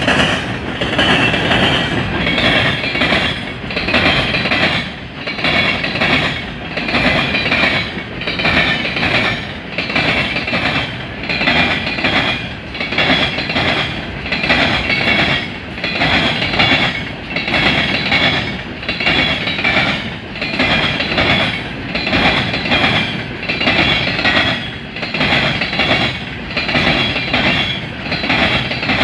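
Long CSX freight train of refrigerated boxcars rolling past, its steel wheels clacking over the rail joints in a steady rhythm of about one swell a second, with a high metallic whine from the wheels on the rails.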